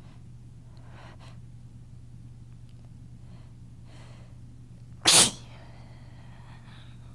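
A person sneezing once, with a stuffy nose: a few faint catching breaths, then one sudden loud sneeze about five seconds in, trailing off briefly.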